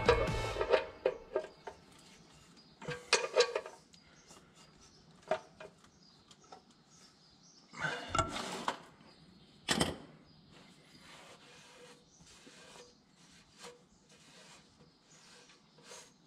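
Ratchet wrench and socket turning the engine's sump drain plug: scattered metallic clicks and knocks, with louder clanks about 3, 8 and 10 seconds in.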